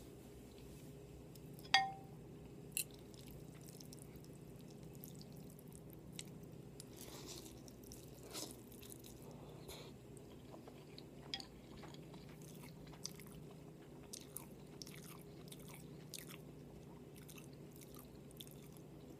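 Close-miked eating: soft chewing and wet mouth clicks over a steady low hum, with a sharp clink about two seconds in.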